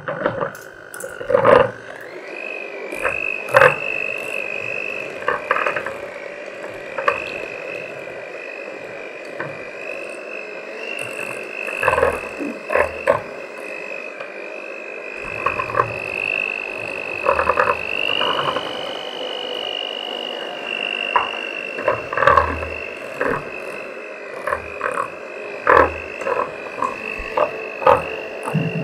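Electric hand mixer running with a steady motor whine that rises as it speeds up in the first two seconds, its beaters knocking and clattering against the glass bowl as they beat eggs into thick choux paste.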